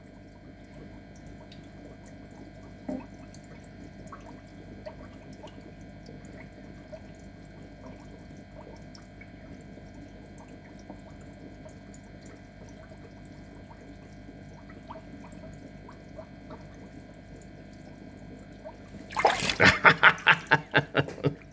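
Water trickling steadily with faint drips, then, about nineteen seconds in, loud irregular splashing as parrotfish thrash at the surface by the feeding hand.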